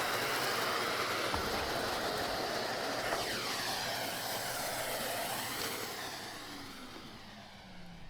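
Numatic James canister vacuum running with a steady rush of suction. In the last couple of seconds it winds down, its motor tone falling in pitch as it coasts to a stop.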